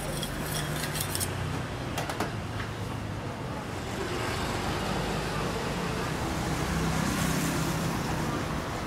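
Road traffic running past, a steady low rumble that grows louder in the second half as vehicles go by. In the first two seconds there are a few short metal clinks from the stall's cooking utensils.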